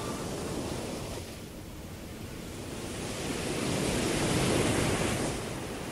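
A rushing noise with no tune in it: it eases off, then swells to a peak about four and a half seconds in and falls back, like a wave of surf.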